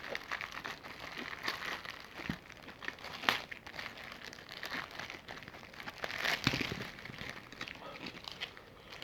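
Close-miked eating of crispy fried chicken: crackling chews and crunches, with a sharper crunch about three seconds in and a denser burst of crackling about six seconds in.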